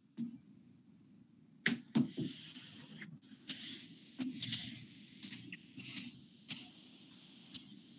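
Whiteboard eraser wiping marker off a whiteboard in a series of quick strokes, a hissing rub with each stroke. It starts a little under two seconds in.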